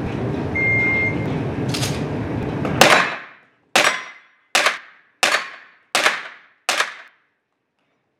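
A short electronic shot-timer beep, then six pistol shots about three quarters of a second apart, each followed by a short ring of reverberation.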